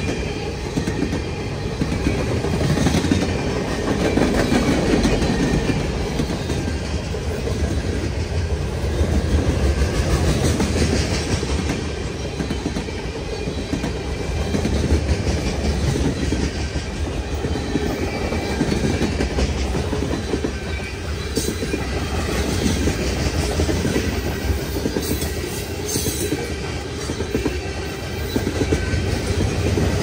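A long freight train's cars rolling past at track side, with steel wheels clattering over the rail joints and a steady heavy rumble.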